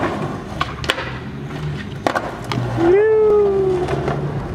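Skateboard wheels rolling on street pavement, a steady low rumble broken by several sharp clacks of the board. About three seconds in comes a pitched cry lasting about a second, rising and then slowly falling.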